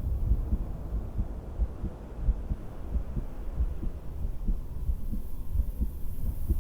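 A person's heartbeat heard through a stethoscope: a run of low, repeated thumps.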